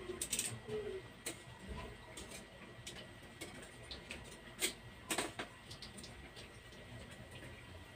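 Metal tongs clicking and scraping against a frying pan as dough balls are turned in oil: scattered sharp clicks, the loudest a pair about five seconds in.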